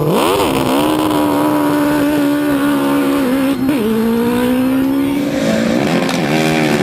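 Drag-racing car's engine launching off the start line and running flat out down the strip: a sharp rise in pitch right at the start, then a high steady note with a brief drop in pitch a little over halfway through.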